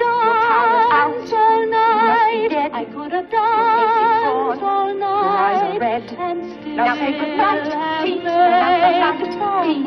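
A woman's soprano voice singing a show tune in long held notes with wide vibrato, over orchestral accompaniment.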